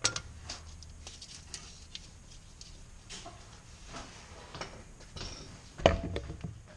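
Small scattered clicks and rattles of hand work, handling zip ties and parts, with one louder knock near the end.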